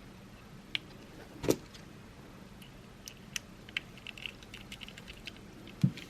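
Small clicks and ticks of a tiny screw and screwdriver working against the plastic case and circuit board of a remote car key, with a louder knock about a second and a half in and a dull thump near the end.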